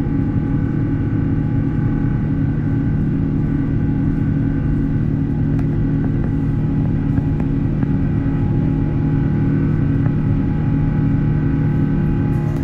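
Airbus A350-1000 jet engines running steadily: a constant rumble with several steady hum tones over it.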